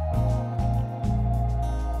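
Background music: long held tones over slowly changing bass notes.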